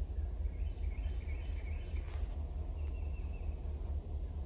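Birds chirping in short phrases over a steady low rumble, with one brief click about two seconds in.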